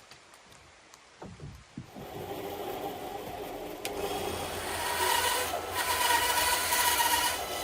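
A few light knocks of branches being handled, then from about two seconds in a power drill running steadily, driving screws into laurel branches, with a short break partway through.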